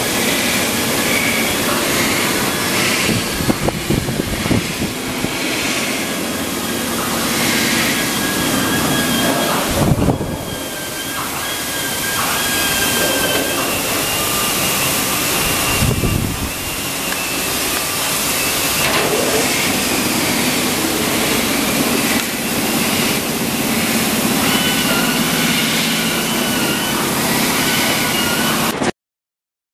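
Abrasive drum sanding machine grinding and brushing stainless steel sink panels: a loud, steady rushing noise with faint thin whines over it. It changes briefly twice, about a third and about halfway through, and cuts off abruptly near the end.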